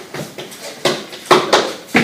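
Chalk on a blackboard: a run of short, sharp taps and strokes as someone writes, irregular, a few to the second.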